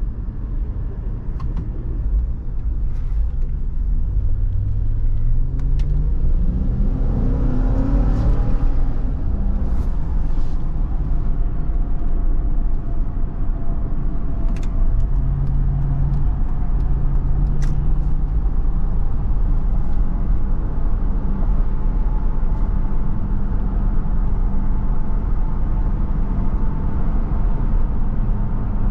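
Vehicle driving on the road: a steady low rumble of engine and tyres, with an engine note that rises in pitch for a few seconds as it accelerates, then holds steady. A few faint clicks come through over it.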